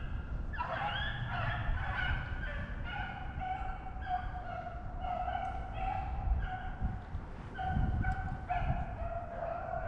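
A pack of rabbit-hunting hounds baying in chorus on a rabbit's trail: many long, overlapping bawls from several dogs at once.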